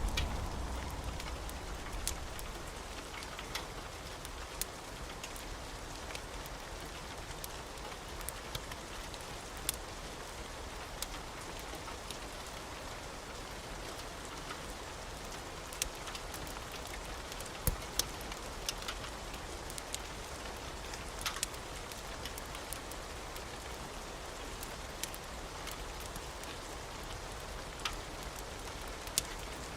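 Steady rain with many scattered sharp ticks and pops. A low rumble dies away in the first couple of seconds.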